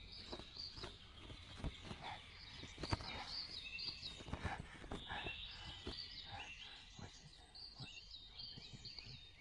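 Small birds chirping over and over in the background, with soft rustling and crackling as a large sheet of paper is unfolded and handled.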